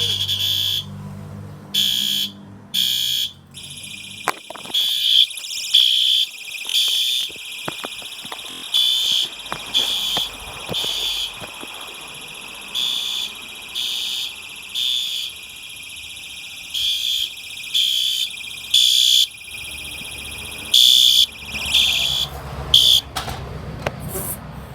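System Sensor SpectrAlert Advance fire-alarm horn sounding the temporal code-3 evacuation pattern on its low-volume setting: groups of three short, harsh blasts separated by longer pauses. A fainter steady tone at the same pitch carries on underneath the blasts.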